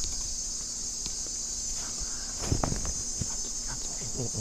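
Steady high-pitched chirring of insects. A short cluster of soft knocks comes about halfway through.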